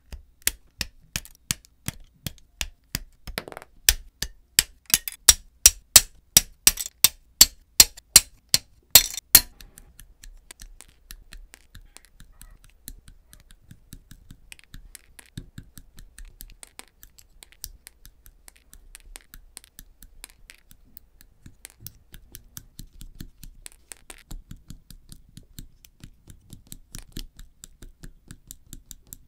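Plastic model-kit parts being snipped off their runners with side cutters (nippers): a run of sharp snips about two a second. From about ten seconds in, quieter, quicker small clicks as the leftover gate nubs are trimmed off the parts.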